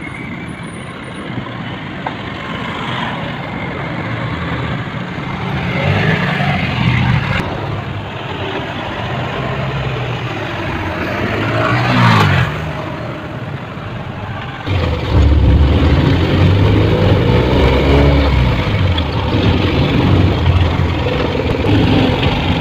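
City road traffic, with cars and jeepneys going by and one vehicle passing loudly about twelve seconds in. From about fifteen seconds in, a nearby engine runs louder and steady, heard from inside a vehicle.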